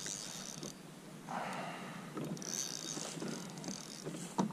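Spinning reel being cranked to bring in a hooked fish: a light mechanical whir with scattered clicks.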